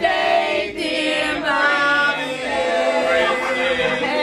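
A group of people singing together, several voices holding notes at once.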